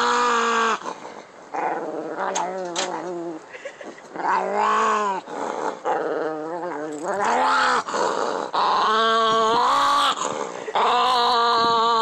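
Small black-and-tan dog growling in odd, pitched, up-and-down moans. There are about seven calls, each half a second to a second and a half long, with short breaks between them.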